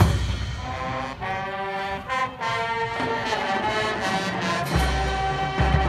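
High school marching band opening its show: a sudden loud full-band hit, then sustained brass chords that shift in pitch, with heavy low notes near the end.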